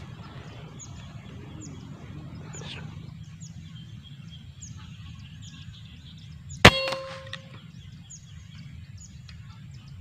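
A single sharp air rifle shot about two-thirds of the way in, with a brief metallic ring after it.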